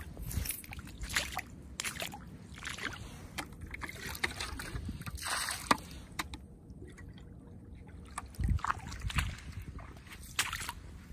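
Shallow water sloshing and splashing in irregular bursts as someone wades through it.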